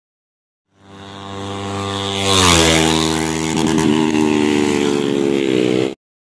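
A motorcycle engine running at speed, growing louder as it comes close and dropping in pitch as it passes about two seconds in, then running on until it cuts off suddenly near the end.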